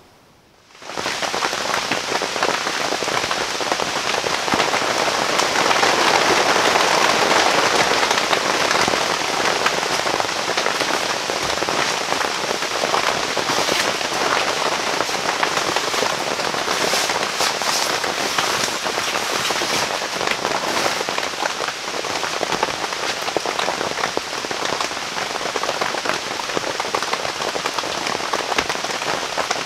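Heavy rain falling on a canvas bell tent, heard from inside: a dense, steady patter on the canvas that starts suddenly about a second in and holds steady.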